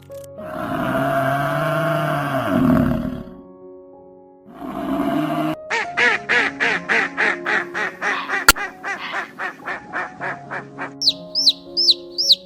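Duck quacking in a fast run of about four quacks a second, over background music. Before it come two longer, noisy animal calls, and near the end a series of high, falling chirps begins.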